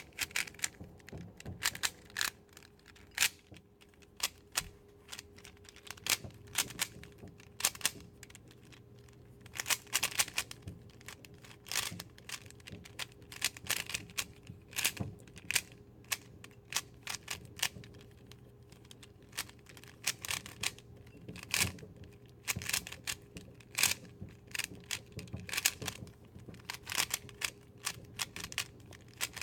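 3x3 Rubik's Cube being turned quickly by hand during a timed beginner's-method solve: an irregular run of plastic clicks and clacks as the layers snap round, coming in quick clusters.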